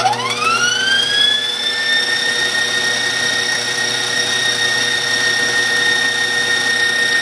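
KitchenAid Professional 5 Plus stand mixer starting up: its motor whine rises in pitch over about the first second and a half, then runs steadily as the wire whip beats the mashed potatoes.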